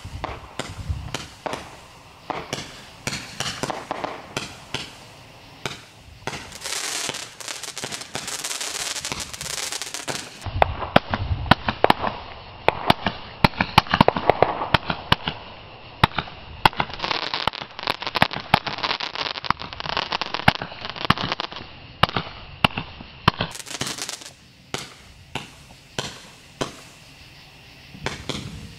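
Ground-launched fireworks going off in a continuous string of sharp pops and cracks. A hissing shower of crackles comes about a quarter of the way in, then a denser volley of loud bangs and pops through the middle, thinning to scattered pops near the end.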